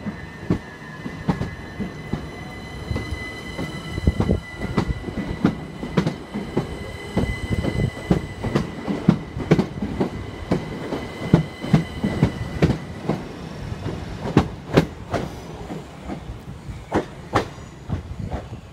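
Southern Class 377 electric multiple unit pulling out of the station: a rising whine in the first few seconds, then its wheels click over the rail joints again and again as the carriages pass.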